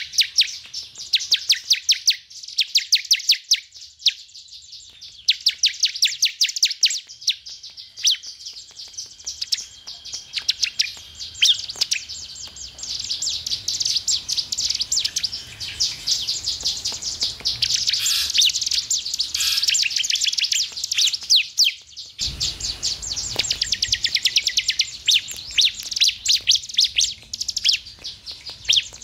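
Prinia (ciblek) singing: repeated bursts of rapid, high-pitched dry chip notes running into fast trills, with short pauses between bursts.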